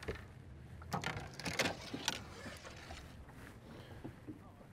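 A few short, sharp knocks and clatters, bunched in the first two seconds, over a low steady rumble.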